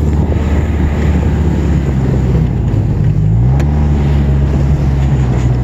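Snowmobile engine running steadily while under way; about three and a half seconds in its pitch rises over about half a second, then holds at the higher speed.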